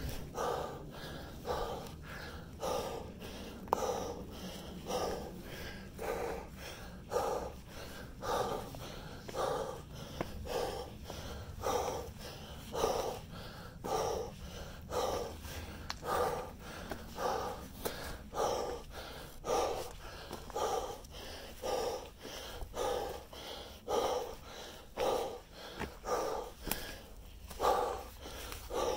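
A person breathing hard and rhythmically from the exertion of hiking uphill, about one loud breath a second.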